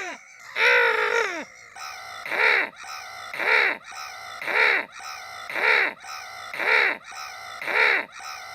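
A crow cawing over and over, about once a second, after one longer cry at the start. Each caw falls in pitch, and they are evenly spaced.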